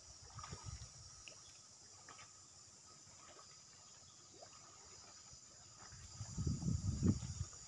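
Steady high-pitched drone of insects in outdoor ambience, with faint scattered ticks. About six seconds in, an irregular low rumble rises over it and is the loudest sound.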